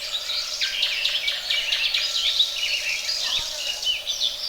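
A dense chorus of many small birds chirping and twittering at once, a steady tangle of short, high chirps with no single call standing out.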